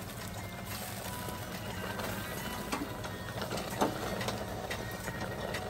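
A slotted steel spoon stirring semolina and syrup in an aluminium pot over a gas burner: a steady hiss with scraping and a few clinks of the spoon against the pot, the sharpest a little under four seconds in.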